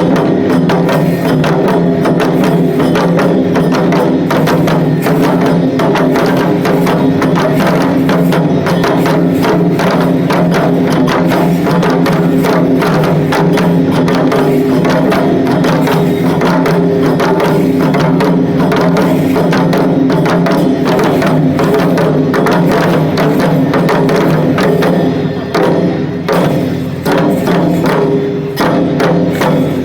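Shishimai (lion-dance) festival accompaniment: fast, dense drumming over steady ringing tones. About 25 seconds in, the beat breaks up into more separate strokes.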